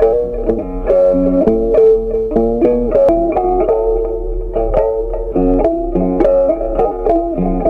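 Background music: a melody of quickly plucked string notes, several a second.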